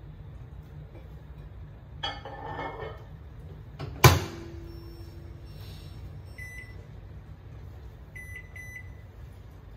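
Panasonic microwave oven being loaded and set: a rattle of handling at the open door about two seconds in, the door shut with a sharp clack about four seconds in, then keypad beeps, one and then a quick run of three near the end.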